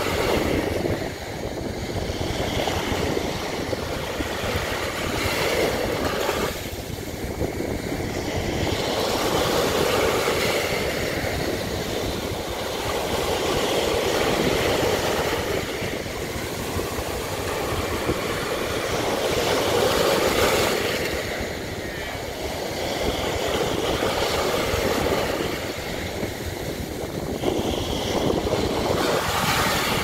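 Small sea waves breaking at the shoreline and washing up over sand: a continuous surf wash that swells and eases every few seconds as each wave breaks and runs up the beach.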